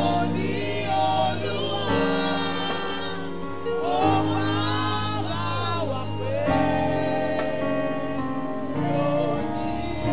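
Gospel worship singing: several singers with microphones sing over an accompaniment of held chords that change every couple of seconds.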